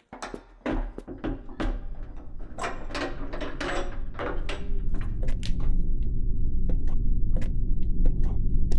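Horror-film sound design: a low rumbling drone that swells steadily louder, with scattered sharp knocks and clicks over it.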